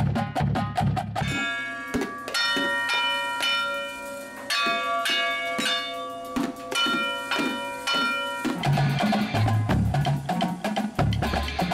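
Marching snare and tenor drums playing a fast pattern. About a second in, this gives way to metal pots and pans struck rhythmically with spoons, each hit ringing with bell-like tones. From about eight and a half seconds, a line of marching bass drums of several pitches plays a rolling pattern.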